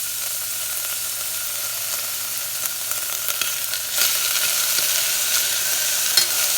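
Frozen mixed vegetables sizzling and crackling in hot oil in a pan, with garlic and jalapeño paste just added. The sizzle gets louder about four seconds in.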